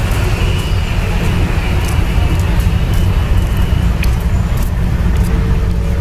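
Steady low rumble of an approaching diesel locomotive hauling a passenger train, with a faint high whine in the first half.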